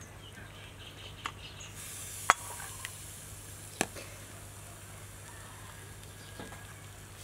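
Soup being ladled: a metal ladle knocks a few times against the aluminium pot and the ceramic bowl, the sharpest knock about two seconds in, over the steady hiss of the broth simmering in the pot.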